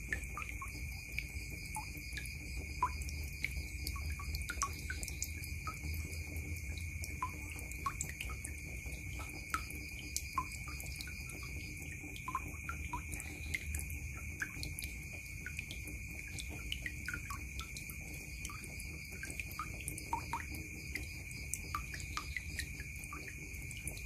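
Water dripping and trickling from a tap into a plastic basin full of water, with irregular small plinks and splashes. A steady high tone and a low hum run underneath.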